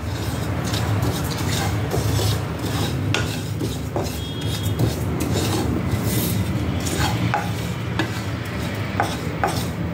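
A wooden spatula stirring and scraping dry whole spice seeds (fennel, cumin, fenugreek and mustard) around a non-stick pan as they are dry-roasted on a low flame: a continuous rustling scrape with scattered light clicks, over a steady low hum.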